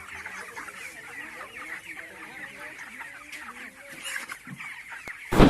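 A large flock of 28-day-old broiler chickens cheeping and clucking in a dense, steady chatter of many overlapping high peeps and lower clucks.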